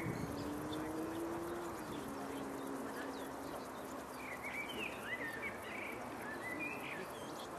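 Birds calling, several short chirping calls in the second half, over a steady background rush.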